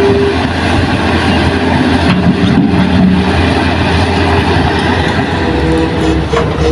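Diesel engine of a heavy earthmoving machine running steadily, its pitch shifting up and down a few times as the load changes.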